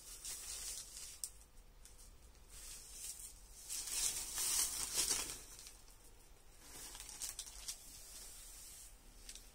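Soft linen saree rustling as it is handled and spread out by hand, in a few swells, the loudest about four to five seconds in.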